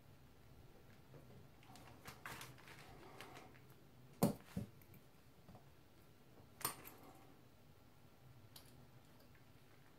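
Small metal parts of a watchmaker's lathe headstock being handled and fitted by hand: faint handling noise with sharp metal clicks, two close together about four seconds in and another near seven seconds.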